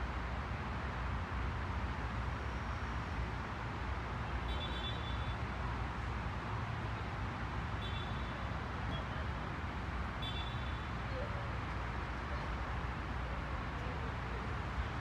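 Steady low rumble of a Falcon 9 rocket climbing away in the distance. A few brief high chirps sound about four, eight and ten seconds in.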